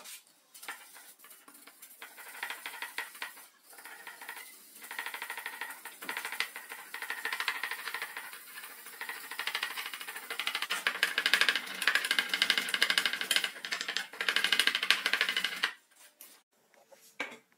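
Bristle brush stroking a clear glossy coat onto a plastic flashlight housing: a rapid scratchy brushing that grows louder past the middle and stops about two seconds before the end.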